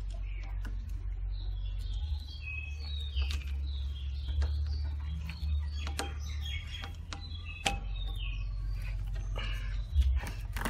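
Screwdriver tightening a wire's terminal screw on a miniature circuit breaker, giving scattered sharp clicks, so the connection is tight and won't spark. Underneath runs a steady low hum, with small birds chirping in short high calls through most of it.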